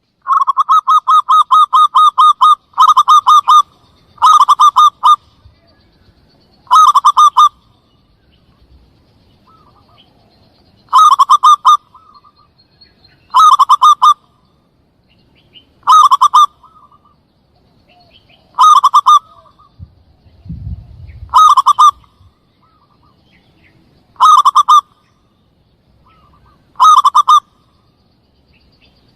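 Zebra dove (perkutut) cooing, played loud as a hunting lure call. It opens with a two-second run of rapid staccato coos, then short bursts of quick coos repeat about every two to two and a half seconds.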